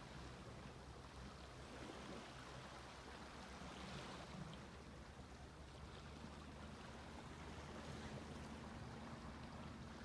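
Faint sea waves washing gently onto a beach, swelling slightly about four seconds in, over a steady low hum.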